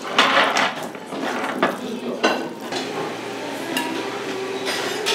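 Chopsticks mixing sauce-coated cold noodles (bibim-guksu) in a stainless steel bowl: wet squelching and light scraping in a series of short bursts, most in the first three seconds, with one more near the end.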